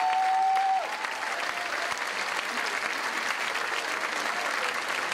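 Audience applauding steadily, with one long held cheer from a listener for about the first second.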